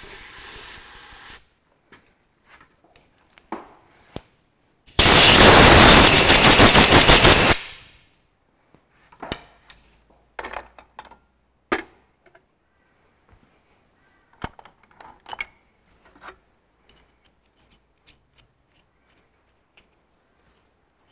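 An aerosol cleaner sprayed in a short hiss into a head-stud hole of a Ferguson TEA20 engine block. About five seconds in comes a much louder, spluttering blast of about two and a half seconds as the hole is blown out dry. Light metal clicks and clinks of tools and washers follow.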